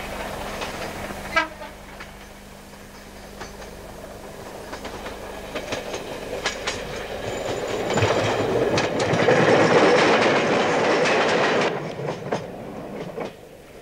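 A train running along the track, its wheels clicking over rail joints. The sound builds to its loudest about eight seconds in, then drops away sharply near the end.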